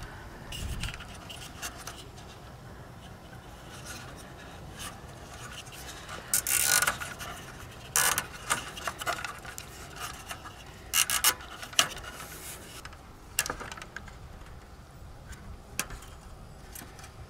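Plastic zip ties being worked through a plastic RV refrigerator vent grille and its wire-mesh insect screen: irregular rubbing and scraping of plastic on plastic and mesh, with scattered sharp clicks and a longer rasping scrape about six seconds in.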